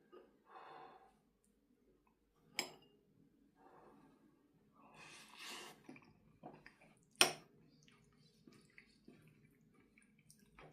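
A spoon or chopsticks clink twice against a bowl, with soft eating and breathing sounds between the clinks.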